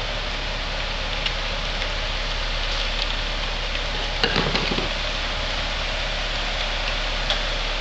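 Modular plastic-belt conveyor line running: a steady mechanical noise over a constant low hum, with a few light clicks and a short cluster of knocks about four seconds in.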